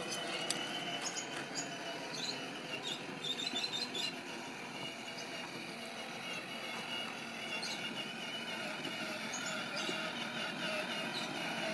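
Battery-powered children's ride-on toy FJ Cruiser driving over grass: its small electric motors and plastic gearbox give a steady whine over the rolling of its plastic wheels.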